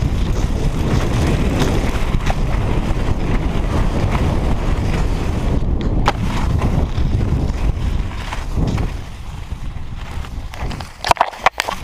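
Cross-country skis gliding and scraping over groomed snow, with wind buffeting the microphone as the skier moves at speed. The noise eases off about eight and a half seconds in, and a few sharp knocks follow near the end.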